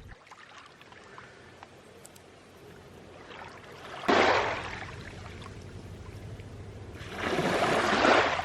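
Small sea waves washing in on the shore: a quiet lull with a few faint ticks, then a sudden surge about halfway through that fades away, and a longer second surge near the end.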